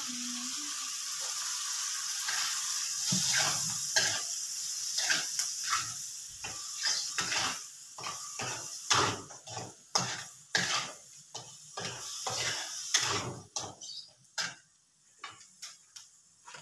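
Food sizzling in a hot wok while baby squid is stir-fried, with a metal spatula scraping and clanking against the pan about once or twice a second. The sizzle is strongest at first and dies down about halfway through.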